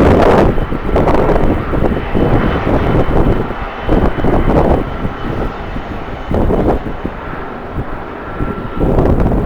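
Jet airliner engines running with a faint steady whine, under strong gusts of wind buffeting the microphone, which come and go in loud surges.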